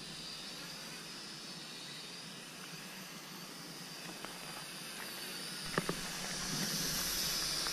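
Faint, steady hissing whine of a small quadcopter drone's propellers flying at a distance, growing a little louder near the end. A couple of soft clicks about six seconds in.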